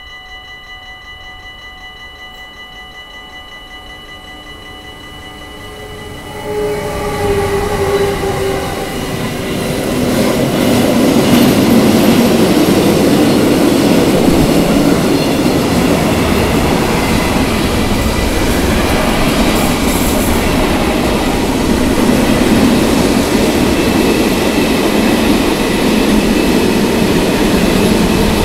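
A level-crossing warning bell rings steadily as a freight train comes near. About six and a half seconds in, the electric locomotive reaches the crossing with a brief falling tone. Then comes the long, loud rumble and clatter of loaded freight wagons rolling past, with occasional wheel squeal.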